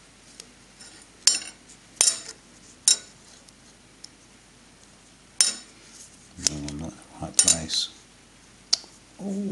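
Metal clinking and tapping, irregularly spaced: broken cast-aluminium cylinder head plate pieces and steel vernier calipers knocking against a steel bench top as the pieces are pushed together and measured.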